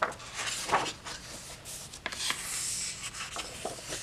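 Thick, heavy paper pages of a hardback coloring book being turned and smoothed by hand: dry rustling and sliding swishes, with a sharp rustle at the start and another long swish about two seconds in.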